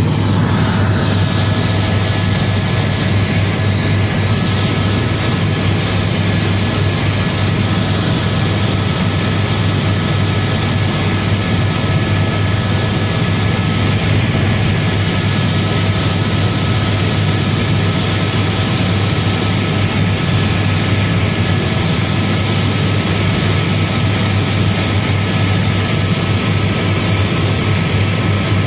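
Helicopter in flight heard from inside the cabin: a steady loud drone of engine and rotors, with thin high whining tones held constant over it.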